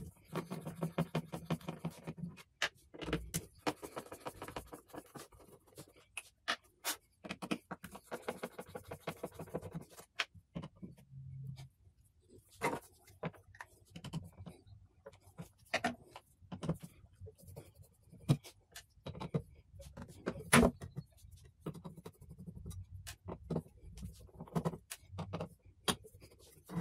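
Screwdriver backing small screws out of a turntable's metal motor cover plate: stretches of rapid rasping as the screws turn, and many sharp clicks and knocks as the screwdriver is reseated and the screws are set down on the wooden plinth.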